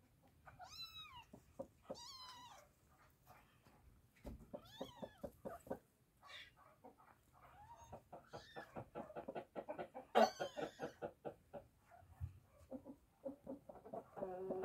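Kittens mewing in high, thin, arching calls about five times, one louder than the rest about ten seconds in. A brooding hen clucks low and fast underneath, more often toward the end.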